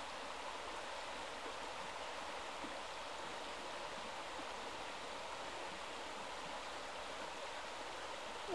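Shallow river rushing over rocks: a steady, even water noise.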